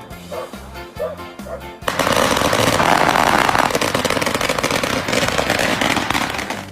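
Background music with a steady bass beat. About two seconds in, a loud, dense rapid crackling rattle takes over for about five seconds, then stops suddenly.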